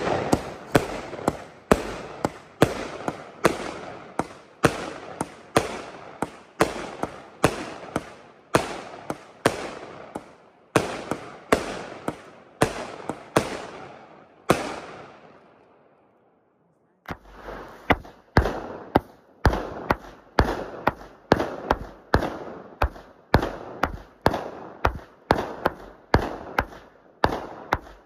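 Dominator Pro consumer firework cake firing a steady string of shots, about two a second, each a sharp report of a shell launching and breaking overhead. The barrage dies away about fifteen seconds in. After a second of silence another string of firework reports follows at a similar pace.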